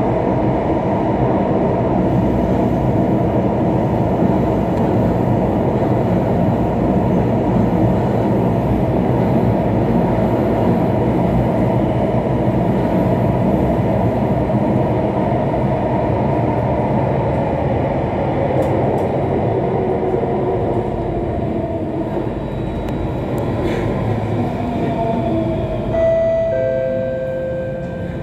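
Alstom Metropolis C830 metro train running through a tunnel, heard from inside: a steady loud rumble and rail noise. In the last several seconds it eases off as the train brakes into a station, with whining tones that fall in pitch and then step down.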